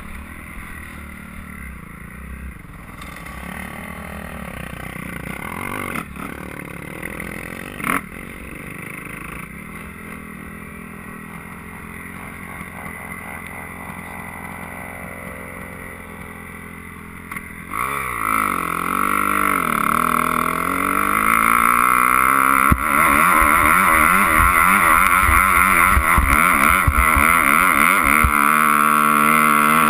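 Dirt bike engine under way on a dirt trail, moderate and varying at first, then revving hard about eighteen seconds in and running loud at high throttle for the rest, as the bike heads into a steep hill climb. Two sharp knocks come in the first eight seconds.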